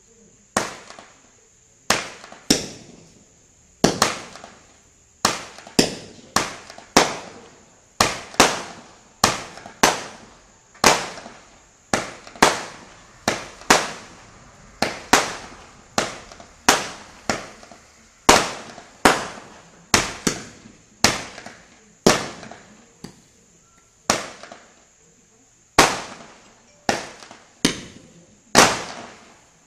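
Benwell Kaleidoscope 25-shot firework cake firing its shots one after another, a sharp bang with a short fading tail every half second to second and a half. A steady high-pitched whine runs underneath.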